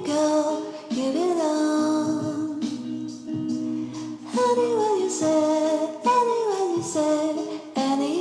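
Background music: a song with a high melody, sung by a woman, that slides downward in repeated phrases over a steady accompaniment.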